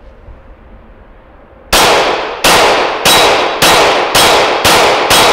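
Nickel-boron coated Glock 19 9mm pistol firing: about seven shots roughly half a second apart, starting nearly two seconds in, each ringing out behind it. The pistol cycles through the string without a malfunction.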